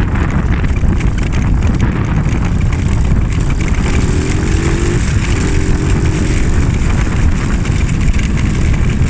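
Monkey bike's small single-cylinder four-stroke engine running steadily under way, heard as a loud low rumble, with a faint higher engine tone for a couple of seconds around the middle.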